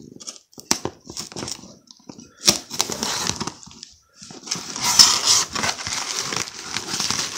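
A knife scoring the packing tape on a small cardboard box, with a few sharp clicks and scrapes. From about four and a half seconds in, the cardboard flaps are pulled open and the packing filler inside rustles steadily.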